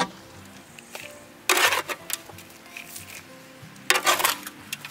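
Soft background music, with two brief rustling pours of potting soil being tipped into a plastic plant pot, about a second and a half in and near the end.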